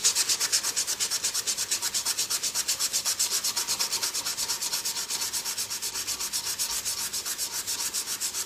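120-grit sandpaper rubbed by hand back and forth along a wooden pen blank with the lathe stopped: rapid, even strokes, about seven a second. This lengthwise hand sanding removes the circular sanding marks left from sanding on the lathe.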